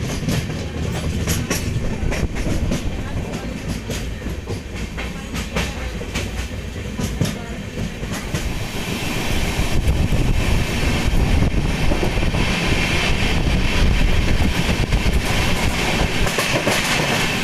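LHB passenger coach running at speed, heard from its open doorway: a steady wheel-on-rail rumble with clicks over the rail joints. It grows louder about halfway through.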